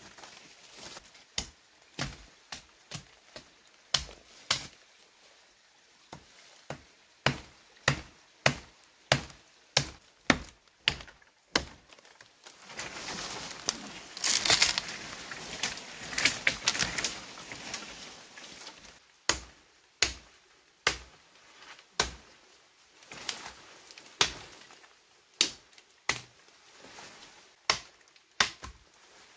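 Wood being chopped with a blade, with sharp strikes landing about one to two a second. Near the middle the strikes give way for a few seconds to denser crackling and rustling.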